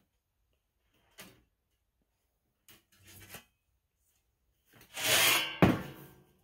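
Aluminium diamond-plate sheet handled on a workbench: a few light clicks, then near the end a loud scrape as the sheet is slid and lifted off the bench, ending in one sharp knock.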